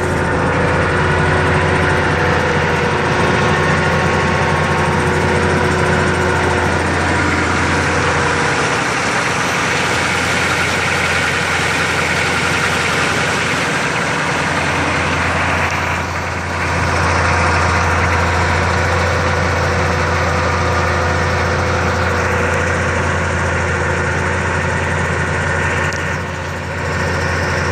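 The 6.2-litre diesel V8 of a 1986 Chevrolet K30 CUCV contact truck, running steadily at idle.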